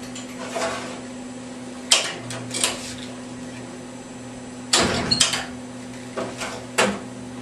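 Ceiling-mounted x-ray tube being moved by hand into line with the Bucky: several mechanical clicks and clunks from its mount, the heaviest cluster about halfway through, over a steady electrical hum.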